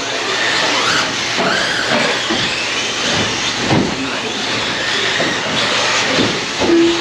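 Electric RC trucks racing, their brushless motors whining up and down in pitch over a steady hiss of tyres on the track, with a short beep near the end.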